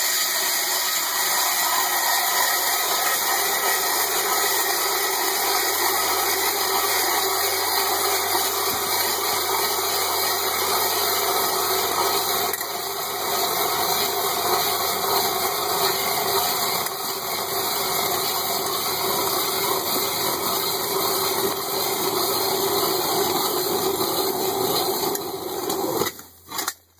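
6-inch Nils hand auger's cutting head shaving through thick clear lake ice, a steady scraping grind as it is turned, which stops near the end.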